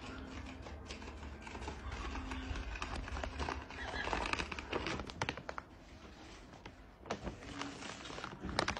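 Plastic cat-food bag crinkling and rustling as a tabby cat carries it in its mouth and drags it over carpet: an irregular run of small crackles, with a brief lull about two thirds of the way through.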